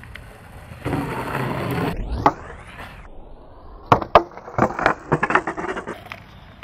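Skateboard wheels rolling on concrete, with a hard smack about two seconds in. A couple of seconds later comes a string of sharp clacks and thuds as a skater slams and his board clatters over the asphalt.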